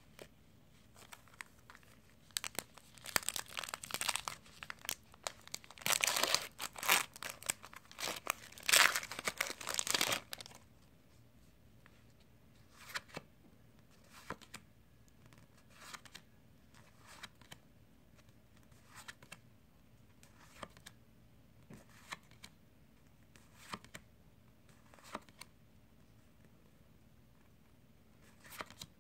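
Foil-plastic wrapper of a Magic: The Gathering booster pack crinkling and tearing open for several seconds. After that come soft single clicks about every second and a half as the cards are slid one at a time from front to back.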